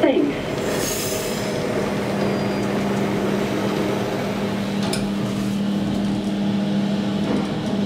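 SMW traction elevator's cab doors sliding shut, a sharp click about five seconds in, then the car moving off with a steady hum that grows stronger as it travels.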